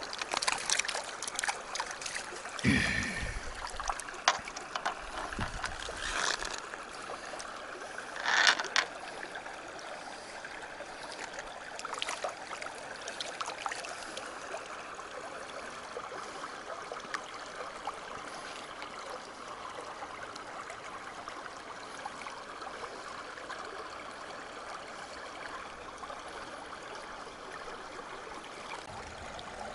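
Shallow river running steadily over stones. In the first nine seconds there are close splashes and knocks as hands work a landing net in the water, the loudest about eight seconds in.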